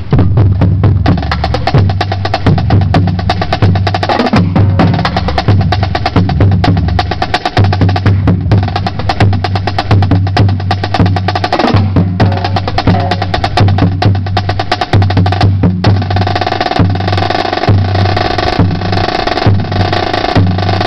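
Marching drumline playing a fast, loud cadence: rapid snare drum strokes and rolls over bass drum hits, with the pattern changing about sixteen seconds in.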